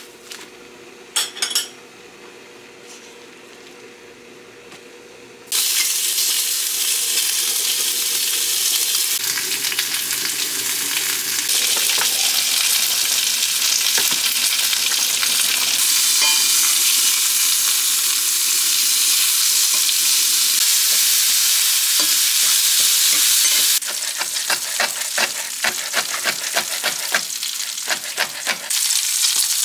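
Slices of pork jowl hit a hot cast-iron skillet and sizzle loudly, the frying starting suddenly about five seconds in and running steadily. Near the end a chef's knife chops green onion on a cutting board in a quick series of sharp strokes over quieter frying.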